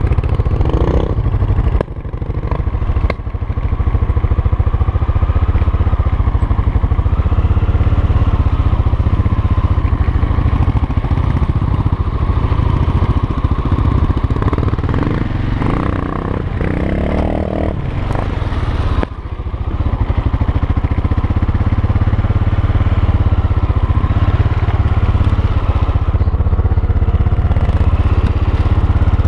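Honda NX650 Dominator's single-cylinder four-stroke engine running as the motorcycle is ridden, the revs rising and falling, with brief drops in throttle a couple of seconds in and again a little after halfway.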